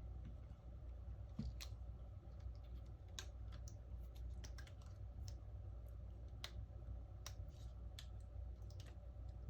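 Small, sharp clicks and taps at irregular intervals from plastic and metal phone parts and tools being handled and pressed together while a smartphone is reassembled.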